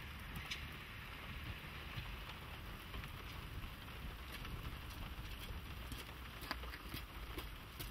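PD1 narrow-gauge draisine running in the distance as it moves away along the track: a low, steady engine rumble under a steady hiss, with a few faint clicks.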